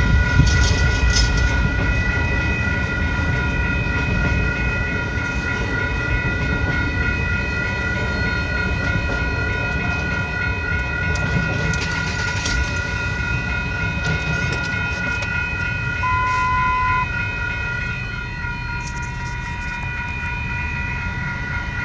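Double-stack container freight train rolling past a level crossing: a steady low rumble of wheels on rail, easing a little near the end, with the crossing signal's bell ringing steadily over it.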